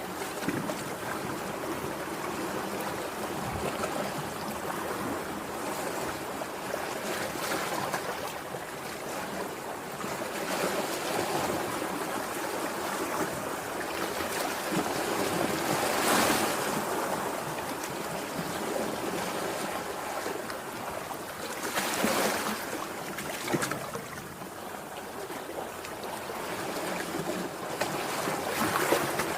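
Sea waves washing onto the shore: a steady surf hiss with louder breakers swelling and falling away, the loudest a little past halfway, again about three-quarters through and near the end.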